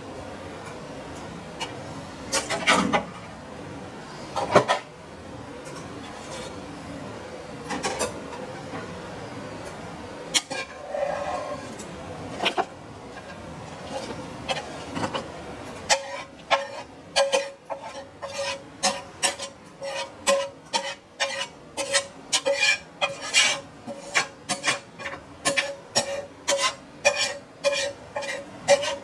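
A kitchen utensil scraping and knocking as sautéed mushrooms are added to a bowl of beaten eggs. A few scattered knocks come first, then from about halfway a quick run of taps, about two a second, each with a short ring.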